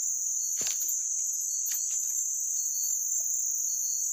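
Forest insects droning steadily at a high pitch, with faint short high chirps now and then and a couple of sharp clicks.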